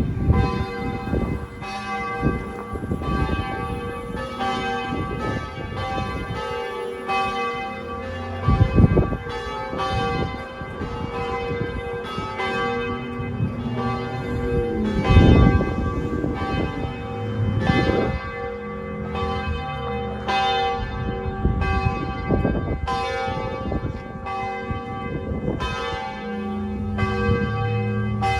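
Church bells ringing: several bells struck over and over, their overlapping tones ringing on between strikes.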